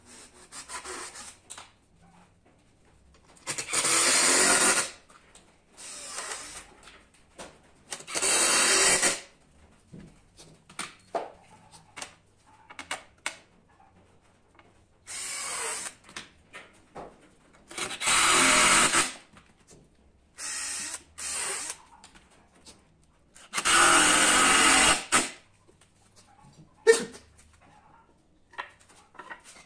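Power drill run in several short bursts of about a second each, with small knocks and clicks between the bursts.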